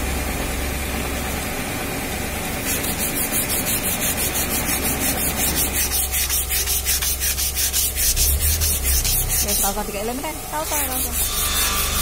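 Hand sanding a yellow balau hardwood decking board with a small piece of sandpaper, working along a crack being repaired. The back-and-forth strokes start about three seconds in and run at about three or four a second, pausing briefly near the end before starting again.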